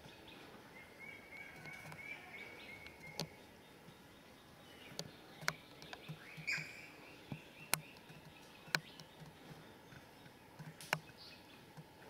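Faint outdoor ambience of small birds chirping and twittering, with a string of short high chirps in the first few seconds. Several sharp single clicks or taps are scattered through it.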